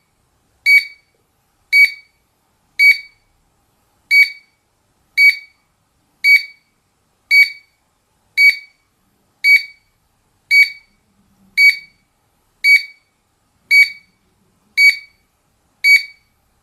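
Wireless GSM alarm control panel beeping during its exit delay while it arms itself: short, high beeps about once a second, counting down the time to leave before the alarm is set.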